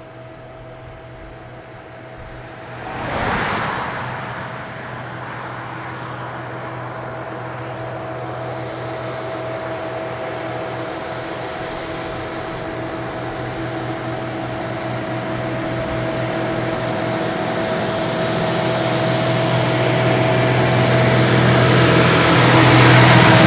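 Isuzu BXD30 bonnet bus's diesel engine running steadily as the bus approaches, getting louder throughout until it passes close by near the end. A brief whoosh about three seconds in.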